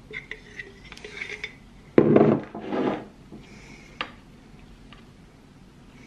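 A metal spoon clinking and scraping against a glass jar and a crêpe on a wooden counter, with a louder scraping knock about two seconds in and a sharp click near four seconds.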